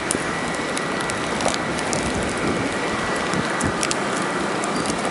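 Steady hiss of wind and blowing snow in a snowstorm, with scattered faint ticks.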